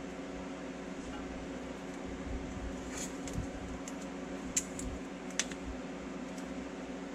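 Painter's tape being torn and pressed onto a steel skid plate by hand: a handful of sharp little clicks and crackles between about three and five and a half seconds in. A steady machine hum runs underneath.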